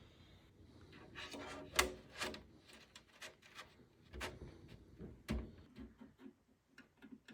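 Dust filters on a PC case being handled: plastic and mesh rubbing, with several sharp clicks and knocks, the loudest about two seconds in.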